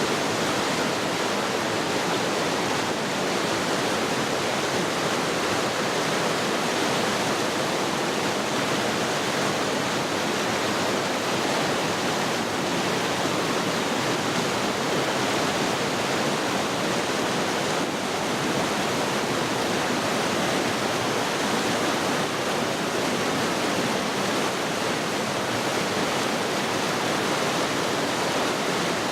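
Rushing water of the Oirase mountain stream, a steady, unbroken rush.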